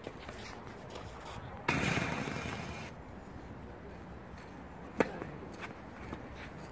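A tennis racket strikes the ball on a serve about five seconds in, one sharp pop. Before it, about a second and a half in, a loud rush of noise lasts about a second.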